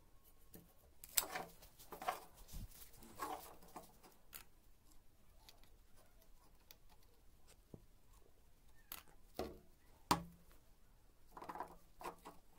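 Handling noise on a wooden workbench: a few short knocks, taps and scrapes as a gloved hand and a cordless soldering iron are moved about, grouped near the start and again in the last few seconds.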